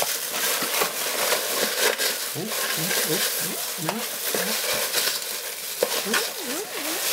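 Continuous crackly rustling of crinkle-cut shredded paper packing filler being rummaged through by hand in a cardboard box.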